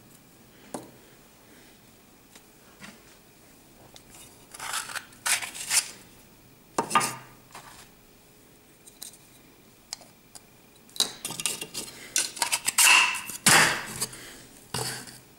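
Hard plastic sand-castle molds clicking and knocking against each other and the tabletop as they are handled. The knocks come in scattered clusters, densest and loudest in the last few seconds.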